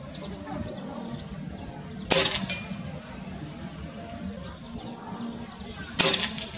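Two shots from a Cometa New Fenix .177 spring-piston air rifle, about four seconds apart. The first is followed about a third of a second later by a short clink as the pellet knocks down a metal silhouette target. Under them runs a steady high-pitched drone with small chirps.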